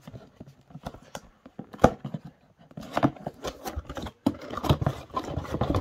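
Light clicks, taps and rustles of a wooden-and-foam toy pizza play set and its cardboard box being handled, with one sharper tap about two seconds in.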